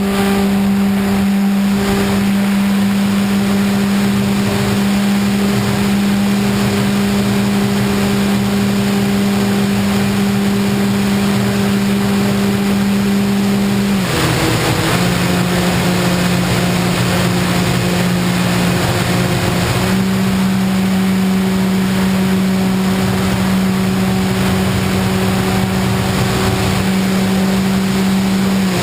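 RC FPV plane's motor and propeller running steadily in flight, a loud droning hum over rushing air noise. The pitch steps slightly lower about halfway through, then rises again a few seconds later as the throttle changes.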